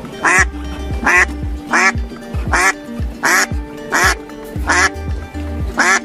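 Music with a steady thumping beat and a duck-like quack repeated in time with it, about eight quacks, one every three-quarters of a second.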